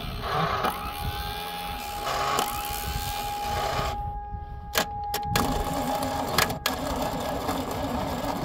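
Starter motor cranking the Fiat 127's old 100GL engine with a steady whine, the engine not catching, while the ignition spark is tested. A few sharp clicks come about halfway through.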